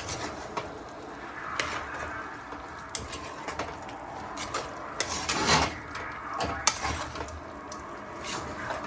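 Kitchen utensils clicking and knocking irregularly against a pan, with a longer scrape about five seconds in, as food is stirred and moved around.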